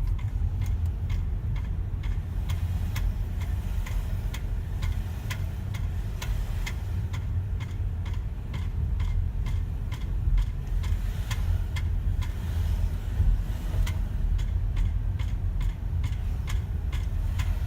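Rapid, regular clicking from a BMW X5, about three clicks a second, over a steady low rumble from the vehicle.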